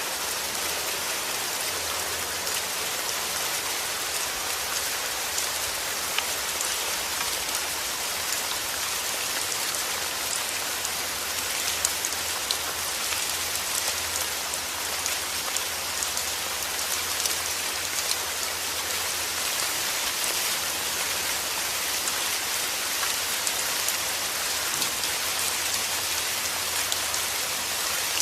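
Heavy rain falling steadily, a dense hiss with many small sharp drop impacts on a hard surface.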